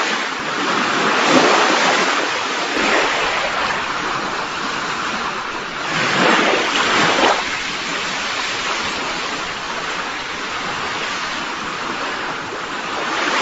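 Recorded ocean surf: a steady rush of waves washing in, swelling about a second in and again more strongly around six to seven seconds in.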